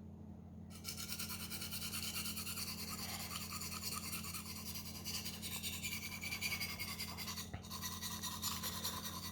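Knife blade scraped rapidly back and forth on a 400-grit sharpening stone in quick, even strokes. The strokes start about a second in and break off briefly near the end, over a steady low hum.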